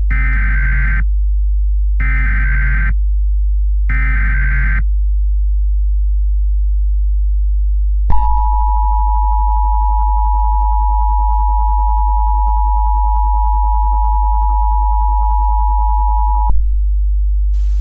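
Emergency Alert System opening: three one-second bursts of SAME digital header data tones, two seconds apart, then the two-tone EAS attention signal held steady for about eight seconds, which announces that an emergency message follows. A constant low electrical hum runs underneath.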